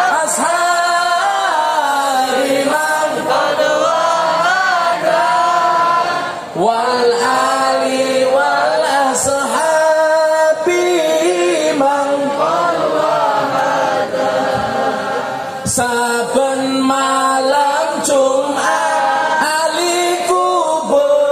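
Sholawat, an Islamic devotional song, chanted by a male lead voice through a loud stage PA and joined by many voices. The melody is sung in long, wavering, melismatic phrases, with short breaks about six and fifteen seconds in.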